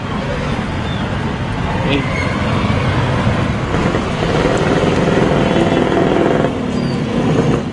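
Street traffic: motor vehicles passing on a road, with a heavier engine drone building about four seconds in.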